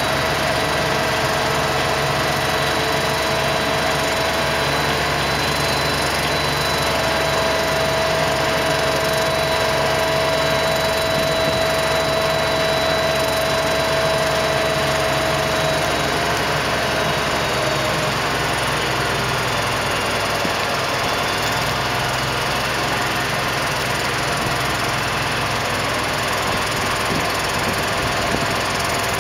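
Diesel engine of a mobile crane running steadily at work, with a steady high tone over it that fades out about two-thirds of the way through.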